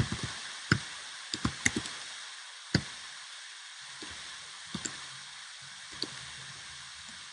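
Computer keyboard being typed on: irregular sharp key clicks in small clusters with short pauses, over a steady background hiss.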